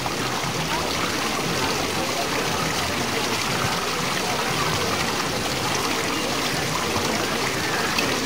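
Steady splashing and trickling of small waterfalls cascading over stone ledges into a garden pond.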